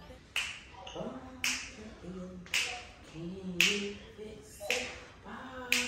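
Finger snaps on a slow, even beat, about one a second, with faint singing or humming under them.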